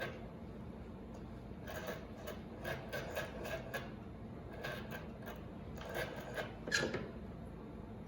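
Rotary telephone dial being turned and spinning back, a scratchy clicking whir in several short bursts.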